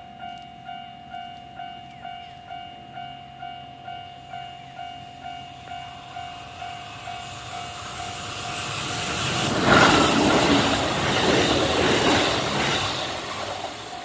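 Japanese level crossing's electronic warning bell ringing its steady 'kan-kan', about two strikes a second. A train passes through the crossing: its noise rises from about seven seconds in, is loudest about ten seconds in, and fades near the end while the bell keeps ringing.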